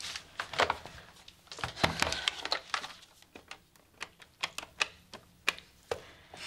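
Desk telephone being used: knocks and rustling as the handset is picked up, then a run of single sharp clicks as the keypad buttons are pressed one at a time to dial.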